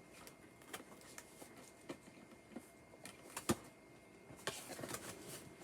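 Cardboard shipping box being worked at by hand, its tabs wedged in tight: scattered small clicks, taps and scrapes of cardboard, the sharpest about three and a half seconds in.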